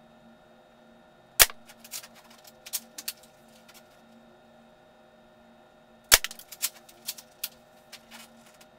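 Two shots from a spring-powered D Boys KAR98 airsoft rifle, about five seconds apart, each a single sharp crack. After each shot comes a quick run of lighter clicks and clacks from the bolt being worked to eject the shell and chamber the next one.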